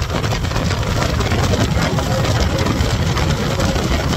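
Twin Suzuki 200 outboard motors running at speed with the boat planing, over a steady rush of wind and water.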